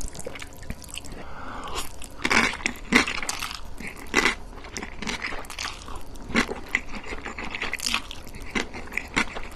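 Close-miked eating: a mouth biting and chewing food, with irregular crunches and wet clicks, the loudest about two to three seconds in.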